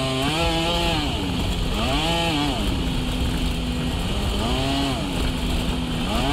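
Turbo Polaris RZR side-by-side's engine running and repeatedly revving up and dropping back, its pitch rising and falling in several surges a second or two apart, over a steady hiss.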